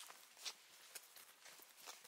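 Faint footsteps of rubber wellington boots on a woodland soil path, a few uneven steps, the loudest about half a second in.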